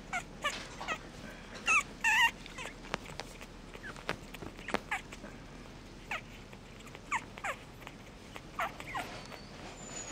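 Very young puppies squeaking and whimpering in short, high-pitched cries that often fall in pitch, scattered at irregular intervals, with a louder pair of cries about two seconds in.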